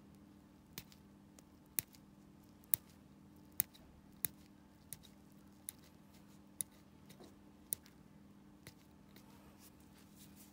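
Steel pedicure instrument clicking sharply against a toenail, about ten short clicks roughly once a second, over a low steady hum.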